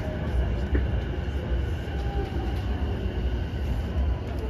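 Onboard running sound of a JR East E233 series 0 electric train: a steady low rumble of wheels on rail with a faint whine above it, as the train runs in toward its next station stop.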